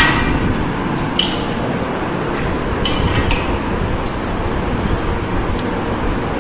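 Cooked rice being mashed and squeezed by hand on a banana leaf, with soft squelching and a few light clicks over a steady background rumble.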